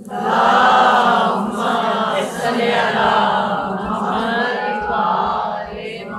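Congregation of many voices reciting salawat together in unison.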